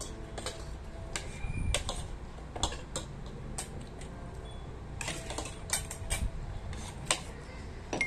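Spoons and forks clinking and scraping against plates while eating: a scatter of irregular light clicks and taps.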